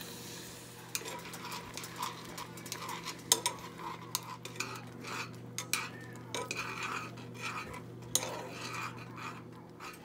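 A metal utensil stirring melting vegan cheese and cashew milk into a sauce in a small metal saucepan, with irregular clinks and scrapes against the pan starting about a second in. A low steady hum runs underneath.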